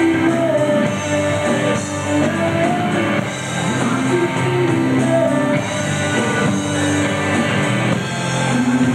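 Live rock band playing: drum kit, electric guitar and bass guitar together, with a sliding melodic lead line over the top.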